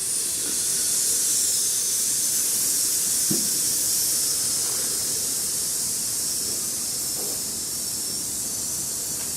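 A long, steady hissing 'sssss' breathed out through the teeth: the lung sound of the Taoist Six Healing Sounds practice, made on a slow exhale.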